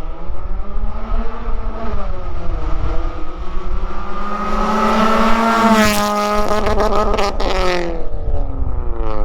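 2009 Mazda3's 2.3-litre four-cylinder, straight-piped from a racing header through a high-flow cat, accelerating hard and really loud. The exhaust note climbs, dips about two seconds in, climbs again to a peak around six seconds, then falls as the throttle closes, with a run of crackles. It starts to rise again near the end.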